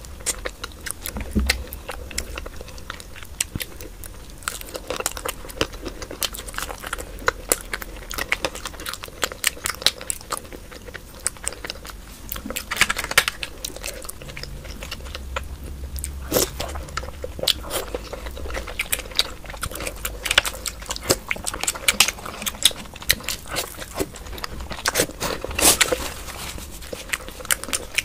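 Close-miked chewing and wet mouth sounds of someone eating soft, syrupy Indian sweets: an irregular, unbroken run of smacks and clicks.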